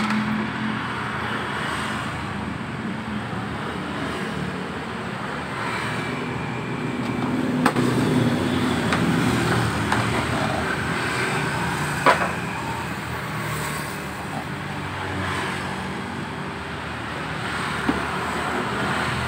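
Steady motor-vehicle engine and road noise, with three short sharp clicks spread through it as plastic scooter body parts and the storage box are worked loose by hand.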